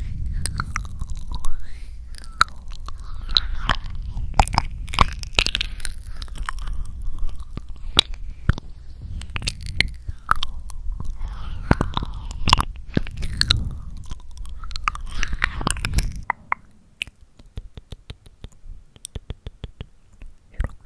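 Close-miked ASMR mouth sounds: wet clicks and smacks of the lips and tongue, dense for most of the stretch, then thinning out to sparse, quieter clicks near the end.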